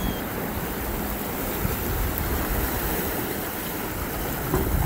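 Sea surf washing against a rocky shore, with wind buffeting the microphone; the low wind rumble grows stronger about four and a half seconds in.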